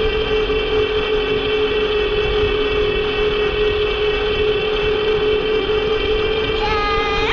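Electric bike motor whining at a steady pitch while riding, with wind rumbling on the microphone. Near the end a higher whine rises quickly and then dips.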